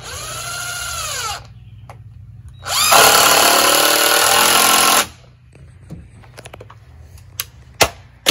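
Cordless drill driving screws into wooden rafters in two runs: a short one whose pitch rises and falls, then a longer, louder one starting a little under three seconds in. A few sharp knocks come near the end.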